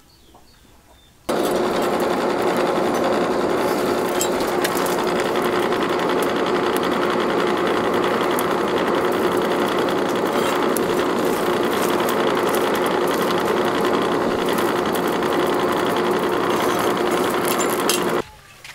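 Forge blower running with a steady whirring hum, forcing air into a charcoal fire. It starts abruptly about a second in and cuts off abruptly just before the end.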